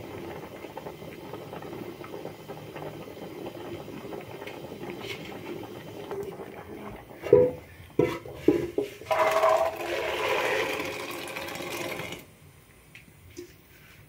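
Peas boiling in water in an aluminium pot with a steady bubbling. About seven seconds in come several sharp clanks of aluminium pots on the stove grate, followed by a rushing pour lasting about three seconds that stops suddenly.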